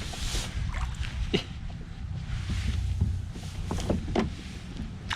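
Wind rumbling on the microphone aboard a kayak on open water, with scattered light knocks and ticks.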